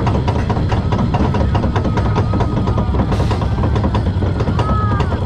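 Roller coaster train rolling slowly out of the station, with a low rumble and a dense, rapid clatter of wheels on the track.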